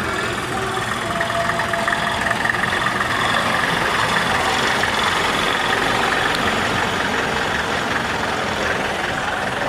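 Motor vehicle engines running steadily at low speed, swelling slightly in loudness through the middle.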